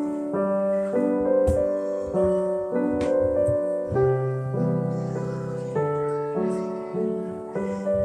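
Background piano music: soft held chords and notes changing about every half second.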